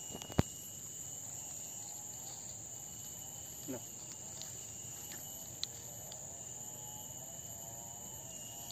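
Steady high-pitched drone of insects in the grass and trees, with a sharp click about half a second in and a smaller click later.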